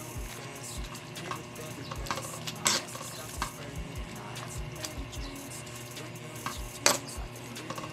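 A spoon stirring and turning odong noodles and spinach in a pan, scraping and clacking against the pan, with the food sizzling. Two sharper knocks of the spoon stand out, a little under 3 seconds in and near the end.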